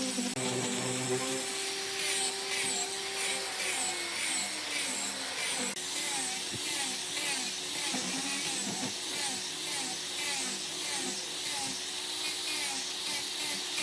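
A small handheld power tool running steadily, its pitch dipping and rising about twice a second as it is worked back and forth.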